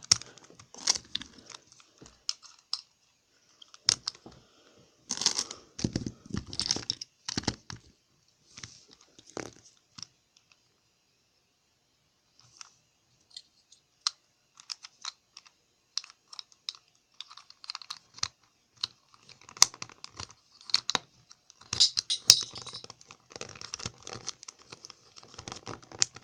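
Plastic pieces of a 3x3 Rubik's cube clicking and rattling as they are fitted back onto the cube, in irregular bursts of clicks and scrapes with a pause of a couple of seconds about ten seconds in.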